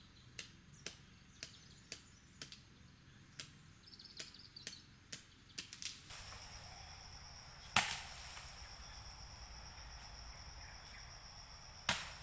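Blows of a blade chopping into a bamboo culm: sharp knocks about two a second for the first half, then a single louder blow about two-thirds of the way in and another at the end. Insects shrill steadily behind.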